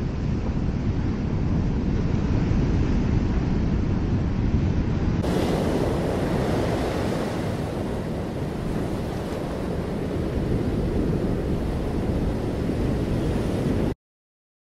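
Steady rush of heavy ocean surf breaking, with wind noise on the microphone. It gets brighter about five seconds in and cuts off abruptly near the end.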